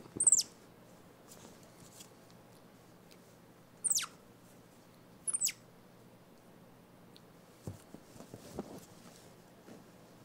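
Baby cinnamon capuchin monkey giving three short, high, thin calls that each fall sharply in pitch: one at the start, then two more about four and five and a half seconds in. A few soft taps and rustles follow near the end.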